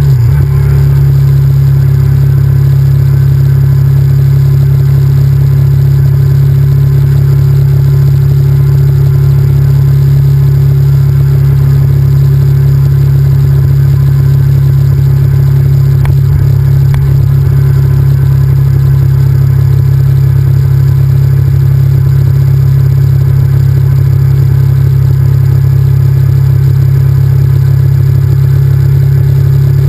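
Honda VTR1000F's 90-degree V-twin engine running loud and steady while the motorcycle is ridden at an even speed, with no revving up or down.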